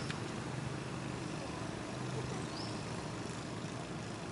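A steady low engine hum from a vehicle running, with two short high chirps, one near the start and one about two and a half seconds in.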